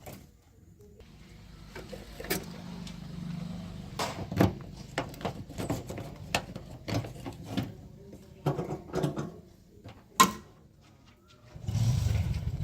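Diesel engine of a JCB 3DX backhoe loader stuck in mud, running faintly under a series of sharp knocks and clanks, then getting loud suddenly near the end.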